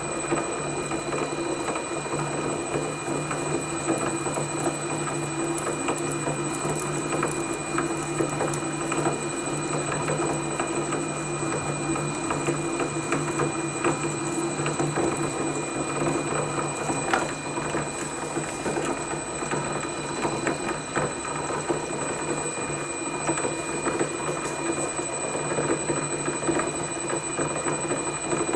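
Holbrook C8 lathe running under power with a steady gear whine and a light crackle, cutting a thread on a hard high-tensile steel stud. The sound dips briefly about eighteen seconds in.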